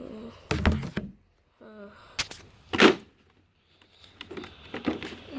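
Clicks and knocks of a headset's box and packaging being handled and opened, with two sharp knocks about two and three seconds in.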